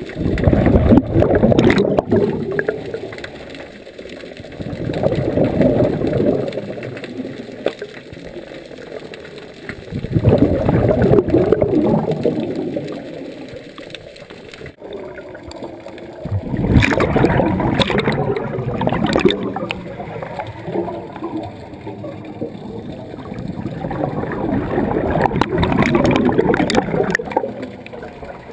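Scuba regulator breathing underwater: five gurgling rushes of exhaled bubbles, each lasting two to three seconds, come about every five to six seconds, with quieter spells between breaths.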